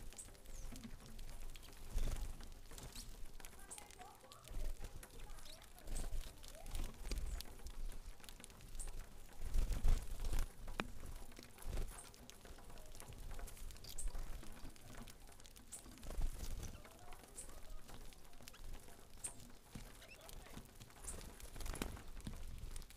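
Saffron finches feeding on grain on a wooden platform feeder: irregular pecking taps on the board, brief high chirps now and then, and soft low thumps.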